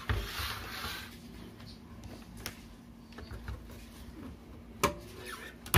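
Sheet-metal top cover of a mini audio amplifier being worked off its chassis by hand. There is a soft rubbing scrape at first, then a few faint clicks, and a sharp metal knock near the end as the cover comes free.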